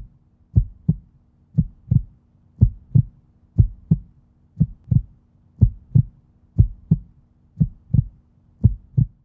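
Heartbeat sound effect: paired low thumps, lub-dub, about once a second, over a faint steady hum.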